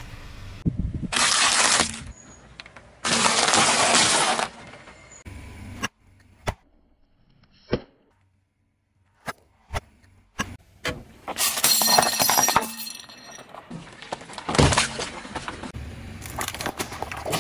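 A car tyre rolling over and crushing hard plastic objects, among them a plastic toy clapper and plastic soda bottles: a series of loud cracking and crunching bursts. After the first two long bursts there is a lull with a few sharp single clicks, and then the crunching starts again.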